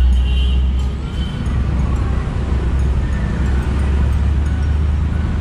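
A motorcycle moving slowly with its engine running, under a heavy, steady low rumble of wind on the microphone.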